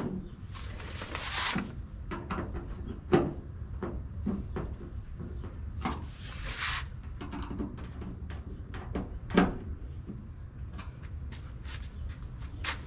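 Scattered clicks and light knocks of a plastic bug shield being fitted along the front edge of a raised 2016 Toyota Tacoma hood. Two louder knocks come about three and nine seconds in, and two short rushing bursts of noise come about one and six seconds in.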